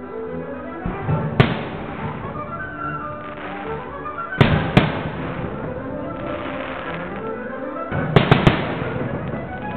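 Aerial firework shells bursting in sharp bangs: one about a second and a half in, two close together around four and a half seconds, and a quick run of three near the end, over music playing throughout.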